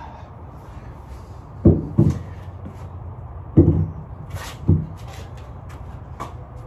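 A few dull thumps and short, sharp breaths during a set of heavy kettlebell swings, over a steady low hum.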